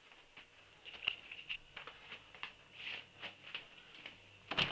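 Light, irregular footsteps and knocks from the hand-held camera phone being carried through the house, with one louder knock near the end.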